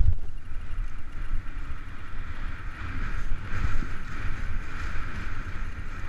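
Head alpine skis sliding over rough, tracked snow, a steady scraping hiss that grows louder about halfway through, with wind buffeting the microphone underneath. A sudden knock right at the start.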